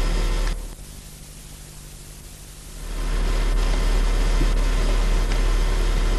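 Steady hiss and low mains hum of an old analogue videotape soundtrack with no programme sound. It drops away for about two seconds shortly after the start, then comes back.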